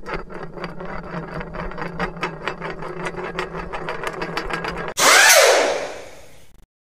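Air impact wrench sound effect: it runs with rapid, even hammering clicks over a steady hum for about five seconds, then gives a loud hissing burst with a falling whine as it spins down.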